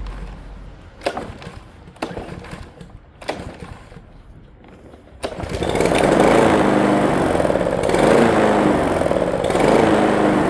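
A few sharp knocks and clatters, then a walk-behind gasoline lawn mower engine catches about five seconds in and keeps running steadily and loudly after it has repeatedly refused to stay running.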